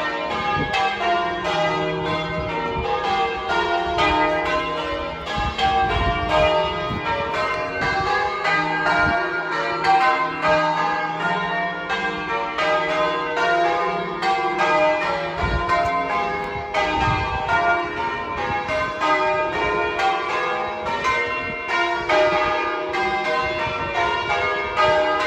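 Church tower bells being rung in changes: an unbroken, evenly paced run of strokes from the different bells, several a second, each ringing on into the next.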